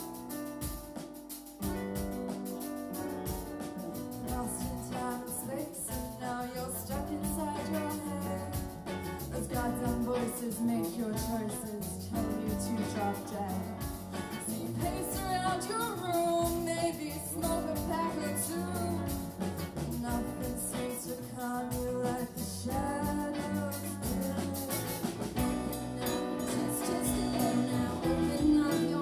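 Live band playing, with electric guitar, bass guitar, keyboard and drum kit, and women singing over the top.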